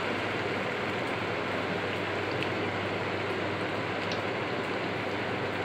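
Chickpea vadas deep-frying in hot oil: a steady sizzle of bubbling oil with no breaks.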